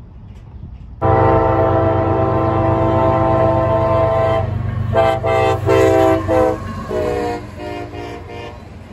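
Diesel locomotive air horn sounding a chord: it comes in suddenly about a second in, holds one long blast of about three and a half seconds, then gives a run of shorter blasts that grow fainter near the end.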